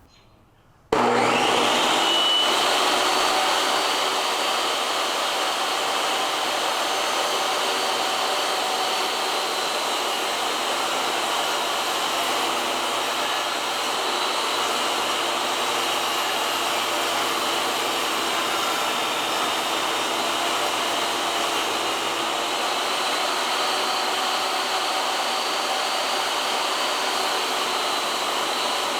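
Small electric blower motor starting abruptly about a second in and running steadily, an even rushing noise with a faint high whine over it.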